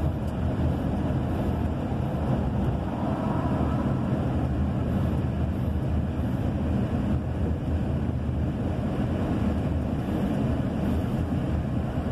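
Steady engine, tyre and wind noise of a truck driving along a paved highway.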